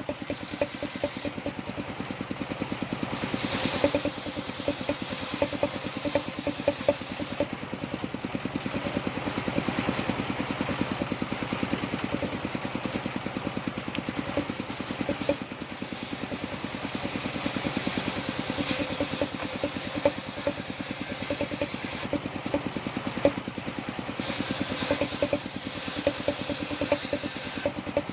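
Engine-driven wood-cutting saw machine running steadily, its engine giving a rapid, even pulse, with a hiss that swells now and then as the saw works through the wood.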